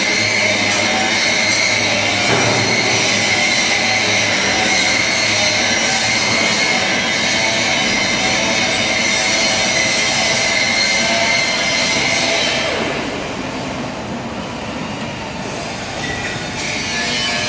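Metal lathe drilling with a 43 mm drill, the work held in a four-jaw chuck: steady machine noise with a high whine. It goes quieter and duller about two-thirds of the way through, then picks up again near the end.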